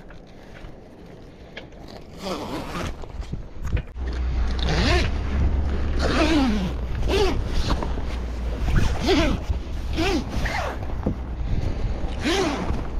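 Long zipper on a canvas mainsail cover being unzipped in a series of short, quick pulls about a second apart, starting about two seconds in.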